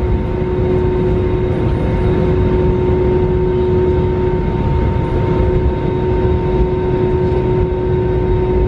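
Cabin noise inside an Airbus A320 airliner: a steady rumble from the jet engines and airflow, with a constant hum held at a few pitches.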